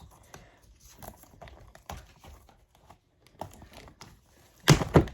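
Scattered light taps, clicks and rustles of a cardboard box and booster packs being handled as the packs are taken out, with one louder knock near the end.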